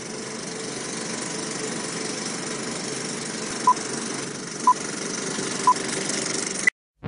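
Film-projector countdown sound effect: a steady whirring rattle of an old film projector, with three short beeps a second apart as the leader counts down, then one higher beep, after which the sound cuts off.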